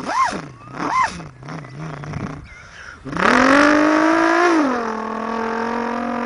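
A person imitating a V8 engine with his mouth: a low idle drone, two quick revs about a quarter second and one second in, then from about three seconds in a long loud rev that climbs, drops and holds a steady lower pitch.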